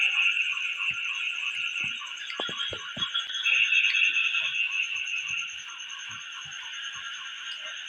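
A steady night chorus of calling frogs and insects, made of fast, evenly pulsing trills layered over one another. A few soft low knocks come about two to three seconds in.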